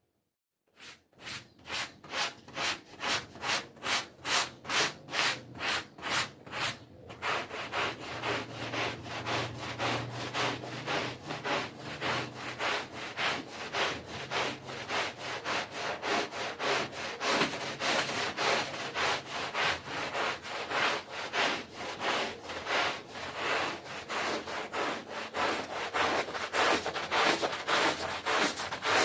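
Carpet being scrubbed back and forth with a stiff brush: a rhythmic rasping, about two strokes a second at first and quickening to about three a second.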